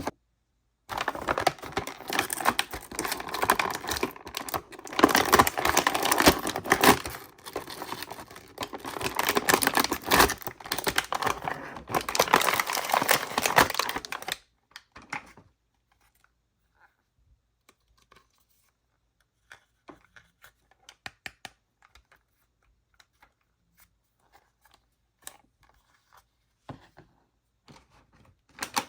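Toy packaging and small plastic parts being handled: dense rustling and tearing for about the first half, then only scattered light clicks.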